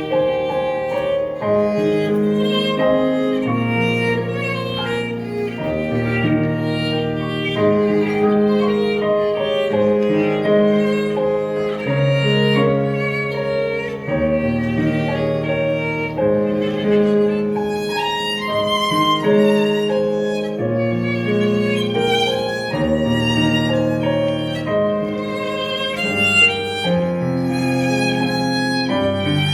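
A small ensemble playing a tune, with violins carrying the melody over held lower notes.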